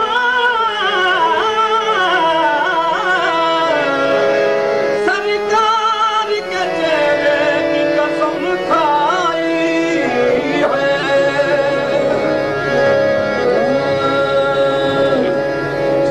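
Sufi devotional song (kalam): a voice sings long, ornamented phrases that bend up and down in pitch over sustained accompaniment. From about ten seconds in, the notes are held steadier.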